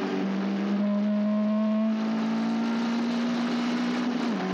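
Caterham Seven race car engine running hard at high revs, its note climbing slowly as the car pulls through a gear, then dipping near the end as the driver changes up or lifts.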